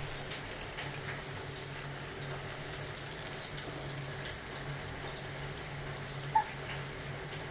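Flour-coated Indian mackerel frying in hot oil in a pan: a steady sizzle over a low hum, with one brief sharp clink about six seconds in.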